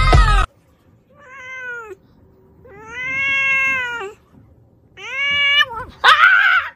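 Loud music cuts off about half a second in; then an orange-and-white domestic cat meows four times. The second meow is long and drawn out, and the last is the loudest and harshest.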